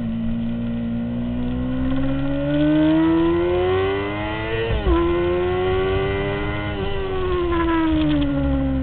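2003 Honda CBR600RR's inline-four engine heard onboard, revving up under acceleration, then a quick upshift about halfway through that drops the revs sharply. It pulls a little more before the revs fall away as the throttle closes, over a steady rush of wind noise.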